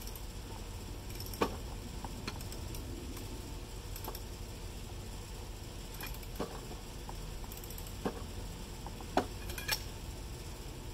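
Scattered sharp metal clinks, about seven spread over several seconds, from a breaker bar and socket being worked on a lawn mower's blade bolt as the blade is tightened back on.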